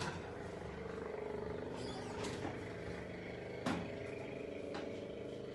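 A plastic spatula knocking and scraping against a frying pan a few times, the loudest knock about two-thirds of the way through, over a steady low hum.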